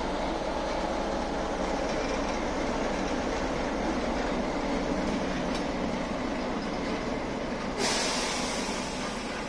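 ČKD six-cylinder diesel engine of a ČSD class T478.3 'Brejlovec' locomotive running steadily as the locomotive moves slowly along the track. A brighter hiss sets in about eight seconds in.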